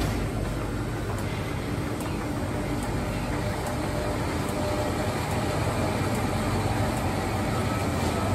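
Slurpee frozen-drink machine running with a steady low hum while blue slush is dispensed into a paper cup.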